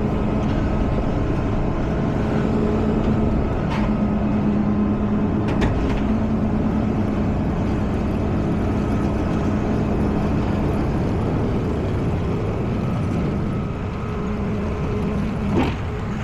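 Tow truck engine running steadily with a low hum that dips briefly now and then, and a few light clicks.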